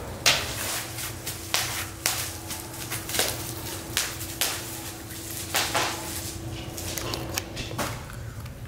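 Bubble wrap crackling and popping under a Siberian husky's paws as it walks over it, in scattered sharp pops at irregular intervals that stop shortly before the end.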